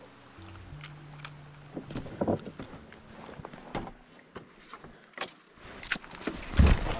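Footsteps, knocks and brushing noises as someone crosses a wooden rail fence through grass and brush, with a heavy thump near the end.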